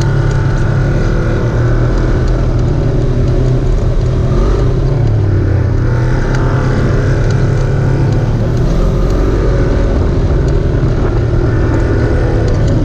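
A vehicle engine running steadily at low revs, its pitch rising and falling a little as the throttle changes, with scattered light clicks and rattles over it.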